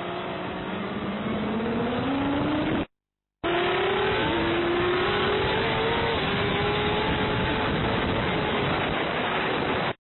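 Racing motorcycle engine heard on board at full speed, its pitch climbing for the first three seconds as it accelerates, then holding high with small dips after a brief dropout, under steady wind rush on the on-board microphone.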